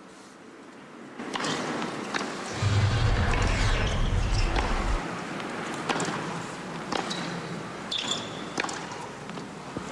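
Tennis rally on a hard court: sharp racquet-on-ball strikes about once a second in the second half, over a steady crowd hum, with a low rumble for a couple of seconds before the rally.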